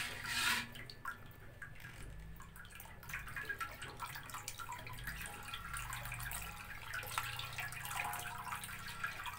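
Thin tapioca-starch batter trickling and dripping through a plastic sieve into a metal wok, with light scraping of a spoon working the batter through the sieve.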